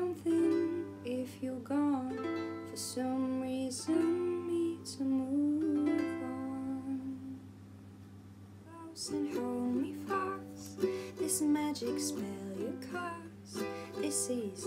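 Ukulele strummed, with a woman singing along. The music dips quieter for a couple of seconds just past the middle, over a steady low hum.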